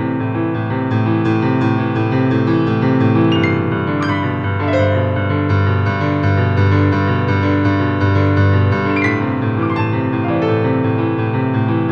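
Background piano music with held chords and a melody of single notes.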